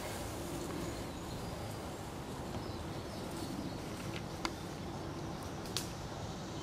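Steady faint outdoor background hiss, with two or three short sharp clicks in the second half.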